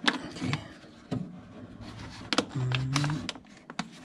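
Hands working a rubber window guide channel into a Honda Civic door frame: a handful of scattered clicks and knocks with rubbing between them, and a short low hum just past the middle.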